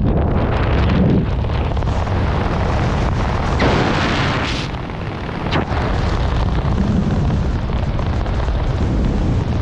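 Wind buffeting the camera microphone in a continuous rumble as a parachute canopy opens overhead and the jumper descends under it. The rush swells for about a second near the middle, and a single sharp click follows shortly after.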